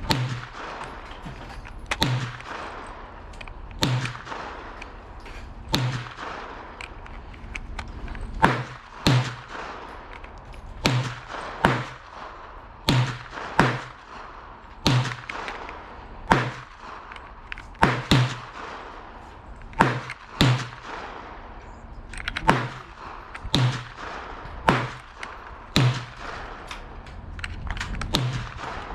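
Gunshots at a shooting range, about twenty sharp reports, each with a short echo. The first few come evenly about two seconds apart, and the rest follow at an uneven pace.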